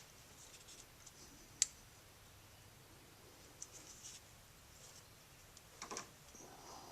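Faint clicks and light scraping of fingers working a stiff triple seal onto a plastic sleeve over a shaft, with one sharper click about one and a half seconds in and a small cluster of clicks near the end.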